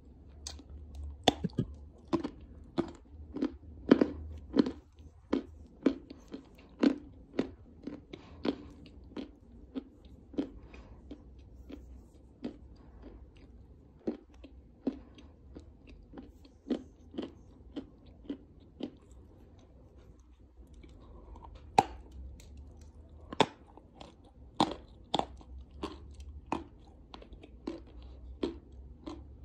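Chunks of Astana Ideal edible clay being bitten and chewed close to the microphone: a run of crisp, dry crunches, about one or two a second, with a short break about two-thirds of the way through.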